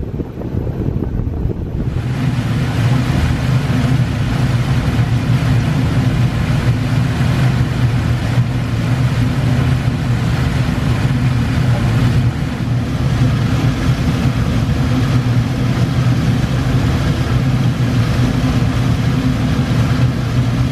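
Motor ferry under way: its engine runs with a steady low hum beneath the rush and splash of the wake churning along the hull. About two seconds in, the rushing water comes in much louder and brighter.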